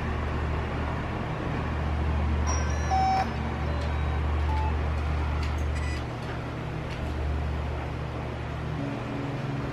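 DJI Phantom 4 powered up on the bench, its camera gimbal motors moving the camera through the start-up self-check, with brief high whines and faint ticks about three seconds in. A steady low hum runs underneath.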